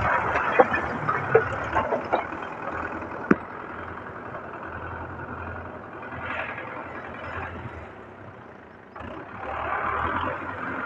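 Russian-made tractor's diesel engine running while its front loader bucket scoops broken bricks, with bricks clattering and a sharp knock in the first few seconds. The engine grows louder again about nine seconds in as the loaded bucket is driven off.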